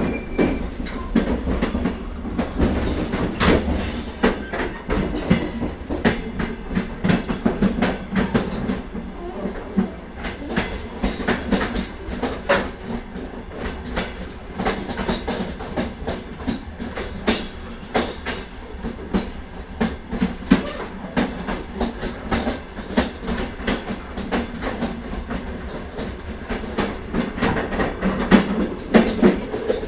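Moving passenger train running along the track: steady rumble with wheels clattering over the rail joints in a constant series of clicks.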